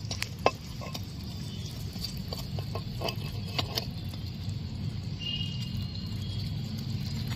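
A small metal spatula stirs thick gravy in a miniature steel pot set over a small wood fire, giving scattered light clicks and scrapes. A low steady rumble runs underneath.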